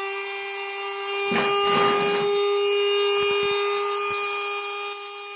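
Electric drill spun up as a makeshift bench grinder, its motor whining at a steady high speed. About a second in, something is held against the spinning tool and grinds with a rasping sound for about a second, followed by a few light taps.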